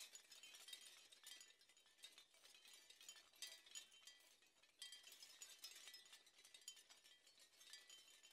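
Near silence, with a faint, dense high tinkling of tiny clinks and short chime-like tones.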